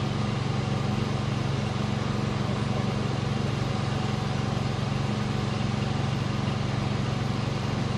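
Steady low engine drone, running at an even pitch and level without rising or falling.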